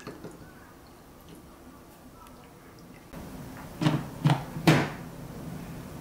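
Milk poured from a carton over ice cubes in a glass, faint. About four seconds in, three short clunks in quick succession as the portafilter is handled at the espresso machine's group head.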